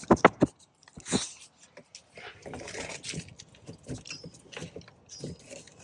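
Sharp clicks, taps and scraping as a bolt is turned into a plastic bumper clip that keeps spinning freely instead of tightening, with a quick run of clicks at the start and a longer scrape a couple of seconds in.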